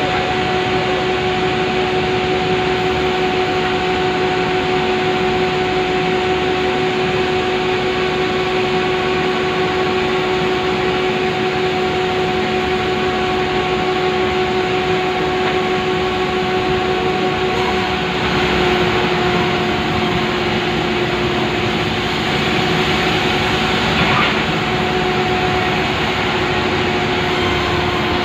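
Two-stroke chainsaw engine running steadily at high revs, cutting lengthwise through a large pulai log.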